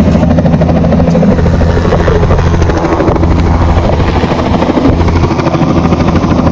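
Helicopter running steadily and loud, its rotor giving a fast, even chop over a low engine drone.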